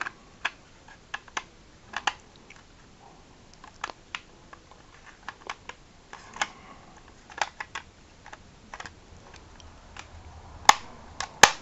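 Hard plastic toy spaceship parts clicking and tapping irregularly as a detached piece is worked back onto the ship by hand, with two sharper clicks near the end.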